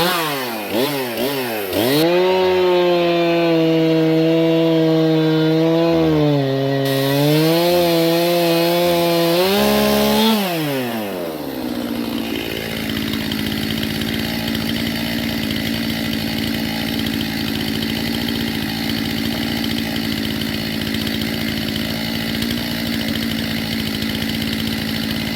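Stihl MS 271 two-stroke chainsaw revving up and cutting through a cherry log at full throttle for about eight seconds, its pitch dipping slightly under load. It then drops back to a steady idle for the rest of the time.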